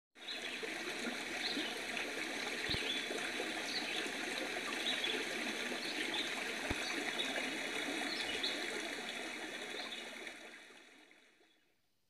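Forest stream babbling and trickling over rocks, a steady rush of water with a few faint high chirps over it, fading out over the last two seconds.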